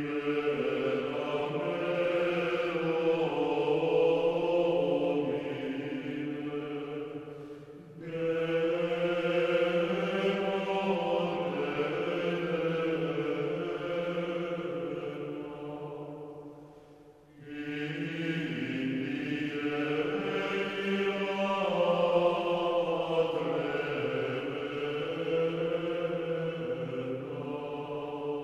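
Soundtrack music of slow, sustained choir-like chords in three long phrases, each swelling and then fading. The breaks between phrases fall about eight and seventeen seconds in.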